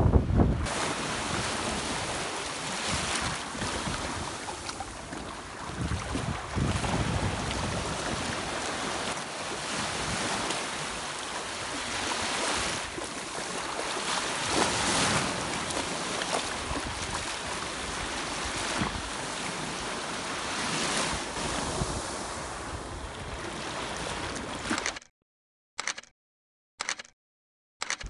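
Small waves breaking and washing through shallow surf, with wind buffeting the microphone; the surf swells up every few seconds. Near the end the sound cuts out suddenly to silence, broken by two short blips.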